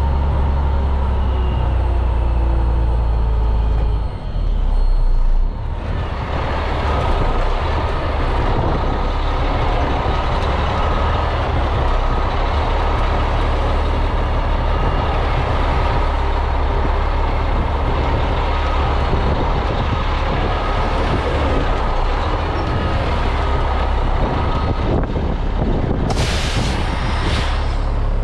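Concrete mixer truck's diesel engine running with a strong low rumble. About six seconds in, a steady hiss rises over it and holds. Near the end comes a short, sharp hiss of compressed air.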